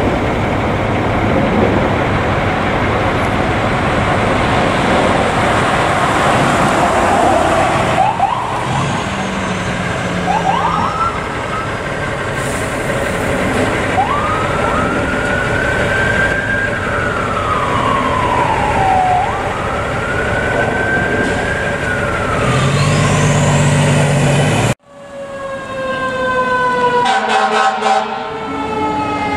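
Fire department ambulance passing on a response, with heavy road and engine noise, then its electronic siren: a few short yelps, followed by two slow wails that rise and fall. Near the end there is an abrupt cut to another fire apparatus siren, full of overtones, its pitch sliding slowly down.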